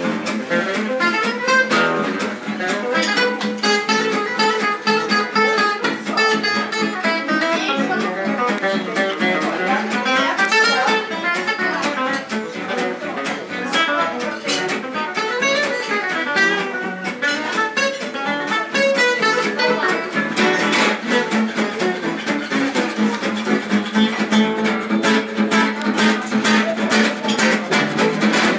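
Gypsy jazz acoustic guitars playing a fast up-tempo tune live: quick single-note lead lines over steady, evenly spaced rhythm-guitar strums.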